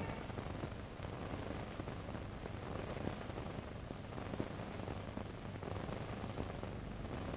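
Steady hiss and low hum of an old film soundtrack, with a few faint crackles.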